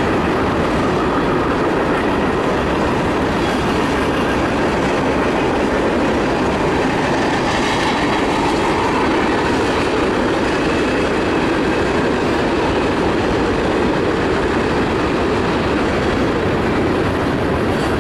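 Freight train's tank cars and open hopper cars rolling past at a steady speed: a continuous, even rolling noise of steel wheels on the rails.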